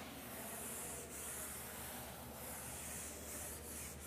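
A cloth rubbing chalk off a chalkboard: a faint rubbing hiss that swells and fades with the wiping strokes.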